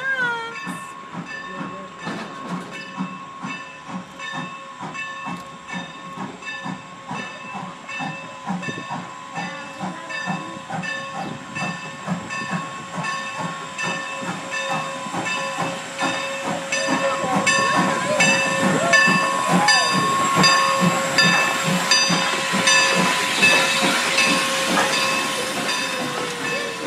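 Steam locomotive hauling a passenger train slowly into a station, with a bell ringing at an even rhythm and the engine running under it. The sound grows louder and a steam hiss swells in the last several seconds as the locomotive comes alongside.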